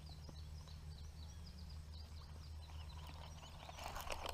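Small birds chirping rapidly in the background over a steady low hum, with a short rush of noise near the end.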